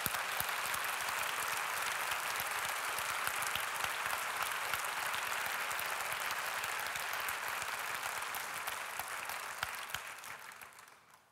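Audience applauding: a steady round of many hands clapping that swells in at the start and dies away near the end.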